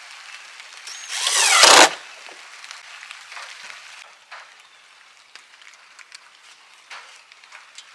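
Power drill running in one short burst of about a second, its pitch sweeping as it drives a hinge screw, followed by a few faint clicks and taps.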